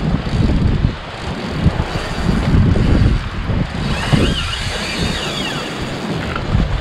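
Strong wind buffeting the microphone on an open boat at sea, a loud, uneven low rumble.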